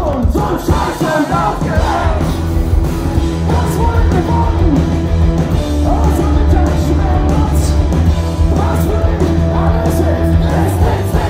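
Punk rock band playing live and loud: bass, drums and guitar with a singer's sung and shouted vocals, heard from amid the audience.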